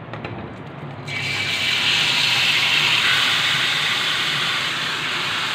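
Marinated chicken pieces hitting hot oil in a small metal karahi: a sudden loud sizzling hiss starts about a second in and holds, easing slightly as the pan fills.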